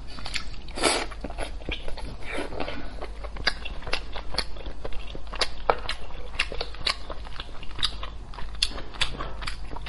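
A person chewing braised pork belly close to the microphone: many short, irregular mouth clicks and smacks.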